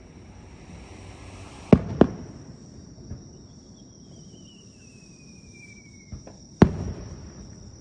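Aerial fireworks bursting: two sharp bangs close together about two seconds in, a whistle falling slowly in pitch, then another loud bang near the end. A steady high insect trill runs underneath.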